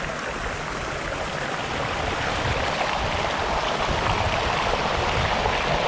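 A stream running, a steady rush of water.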